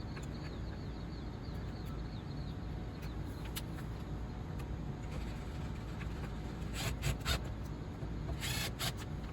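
Screws being driven to mount a storm-door latch: a few short clicks and scraping strokes, the loudest a cluster about seven seconds in and a half-second scrape near the end, over a steady low background hum.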